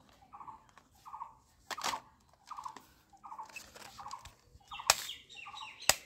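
Sharp clicks and knocks of plastic toy guns being handled, over a faint short chirping that repeats every half second or so.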